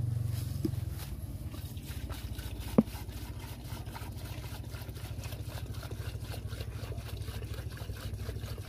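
Diesel glugging as it is poured from a tipped plastic jerry can into a smaller plastic bottle, a steady, rapid low gurgle, with one sharp click about three seconds in.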